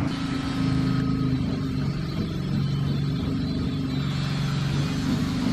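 An engine running steadily, a low hum with a few small shifts in pitch.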